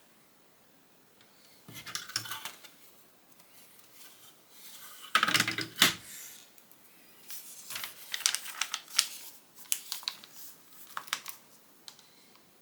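Loose Lego plastic pieces clattering and clicking as they are handled and pressed together, in irregular bursts with short pauses; the loudest rattle comes about five seconds in.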